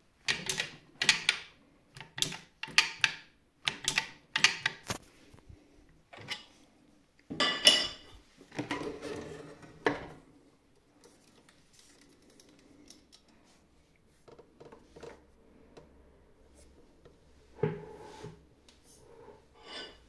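Metal clacks of a Textima industrial sewing machine's presser-foot lifter mechanism being worked. About a dozen sharp clicks come in the first five seconds, then one loud clack with a short rattle, and after that only a few scattered knocks.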